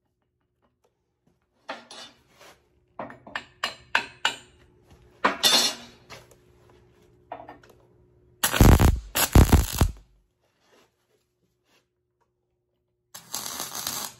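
Light metal clanks and clicks as the work and torch are set in place, then a wire-feed (MIG) welder's arc crackling in short tack welds on steel: once for about a second and a half just past the middle, and again briefly near the end.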